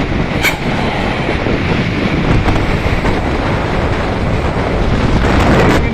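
Wind buffeting the microphone over the low rumble of road traffic, with a short sharp click about half a second in; no horn melody is sounding.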